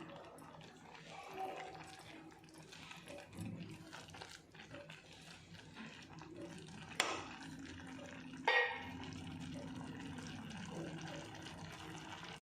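Vermicelli upma cooking in a covered pan on the stove: a faint, steady liquid hiss, broken by two sharp clicks, about seven and eight and a half seconds in.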